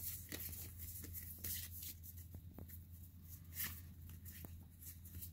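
Pokémon trading cards being leafed through by hand: faint slides and light clicks of card against card, scattered through the stretch, with a low steady hum underneath.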